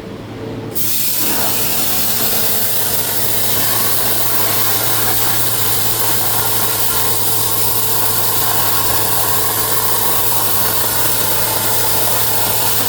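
CNC plasma torch cutting 11-gauge steel plate: a loud, steady hissing rush that starts abruptly about a second in, over a constant low hum.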